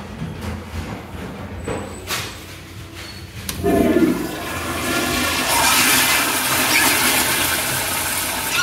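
Zurn commercial toilet flushed by its chrome flushometer valve. A loud gush of water comes about three and a half seconds in, then a steady, hissing rush of water through the bowl.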